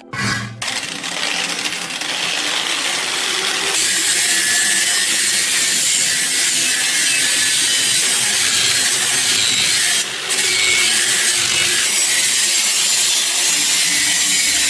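Steady, loud abrasive rasping of a power tool working rusty metal, with a brief break about ten seconds in.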